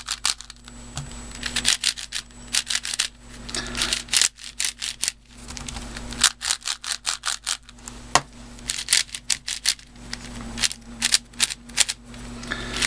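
Plastic speed cube being turned fast by hand: rapid clacking of the layers snapping into place, in runs of quick clicks broken by short pauses.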